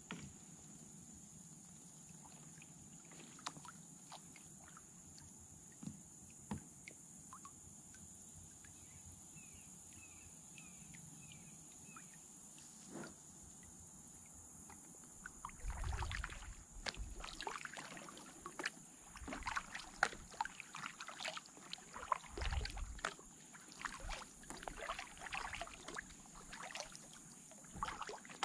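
Kayak paddling on calm water: a few faint drips at first, then, from about halfway, a busy run of paddle splashes and drips, with a couple of low thumps.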